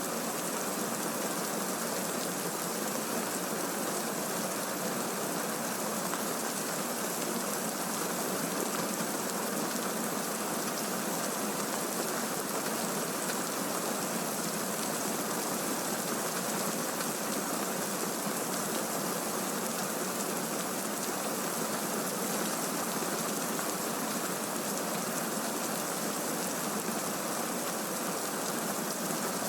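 Steady rain, a continuous even hiss with no thunderclaps or other separate events.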